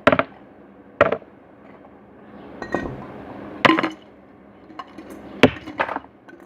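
A series of sharp knocks and clinks, spaced irregularly about a second or two apart, with quieter handling noise between them.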